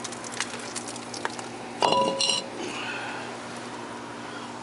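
Small metal hand tools and parts clinking together in a run of light taps, then a louder metal clank about two seconds in that rings briefly.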